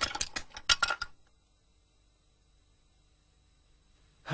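A quick run of sharp clattering hits, arrows striking the walls, for about the first second, then near silence.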